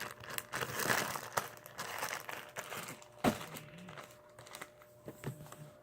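Hands handling slime and its containers: soft crinkling and scattered small clicks, with one sharper click about three seconds in.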